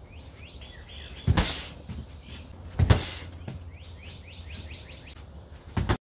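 Three heavy thuds of kicks landing on a hanging heavy punching bag, the loudest about three seconds in and the last near the end. Between them a small bird chirps in quick runs of short falling notes.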